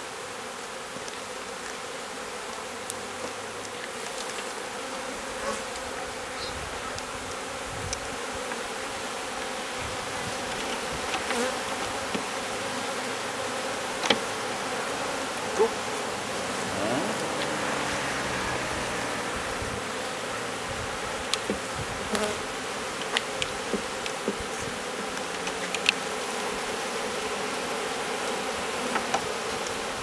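Steady buzzing drone of a honeybee swarm, thousands of bees in the air and crawling over a hive's top bars. It swells slightly in the middle, with a few scattered short clicks.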